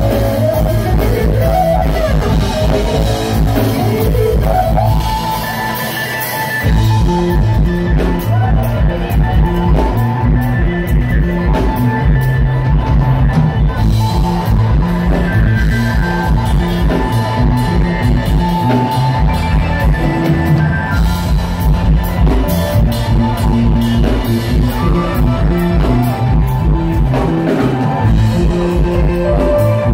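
Live band playing a jam with electric guitars, keyboards, bass and drum kit. About five seconds in the bass and drums drop out briefly, then the full band comes back in with a steady driving beat.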